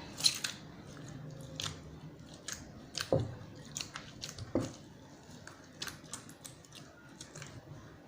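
Homemade glue-and-washing-powder slime being squeezed and kneaded by hand, giving irregular sticky clicks and crackles. Two duller, louder squelches come about three and four and a half seconds in.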